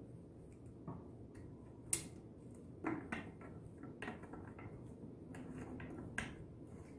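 Scattered light plastic clicks and knocks as a Husqvarna chainsaw's tank cap is handled and screwed shut. The sharpest click comes about two seconds in.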